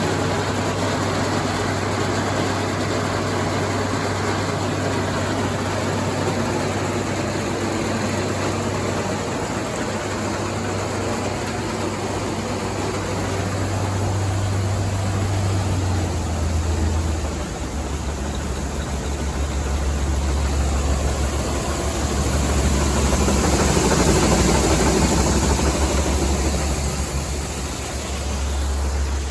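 Tractor engine running steadily; about seventeen seconds in, its pitch drops to a lower, steady speed.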